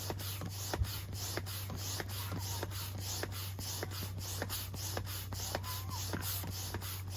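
Double-action hand pump inflating an inflatable kayak chamber: a steady run of airy whooshes, about three a second, with air pushed on both the push and the pull strokes.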